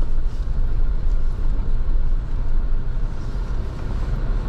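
Steady road noise inside a moving car's cabin: an even, low rumble with fainter hiss above it.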